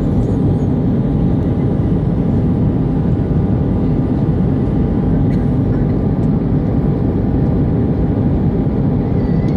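Steady cabin noise of an Airbus A319 in flight: rushing air and jet engine noise, mostly deep, with a faint steady whine above it.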